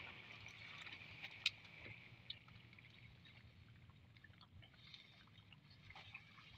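Faint rustling of tall grass and water disturbed by someone wading through a weedy marsh, over a steady high-pitched hum, with a sharp click about one and a half seconds in.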